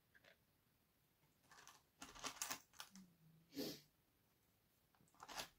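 Faint clicks and rustles of small seashells being picked up and set down on a wooden frame. A soft, short, low snore is heard once, about three seconds in, from a sleeping cat.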